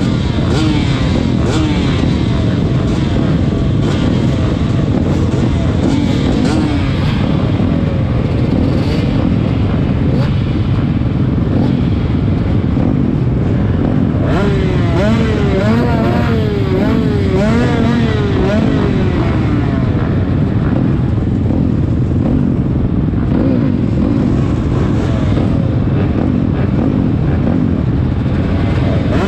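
Several motocross bikes' engines running together, with a loud steady drone. About halfway through, engines are blipped repeatedly, their pitch rising and falling over a few seconds.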